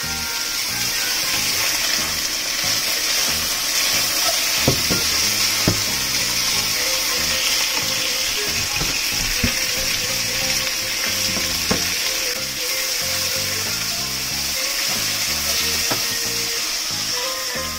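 Slices of pork belly sizzling steadily as they fry in oil in a nonstick frying pan. A few sharp clicks as chopsticks knock against the pan while the pieces are turned.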